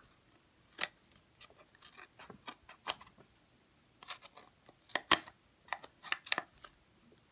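Small scissors snipping through paper, a series of short, irregular snips that come more often in the second half.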